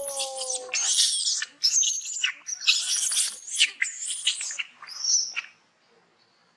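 Macaques screeching: a rapid run of short, high-pitched squeals that opens with a lower falling call and stops about a second before the end.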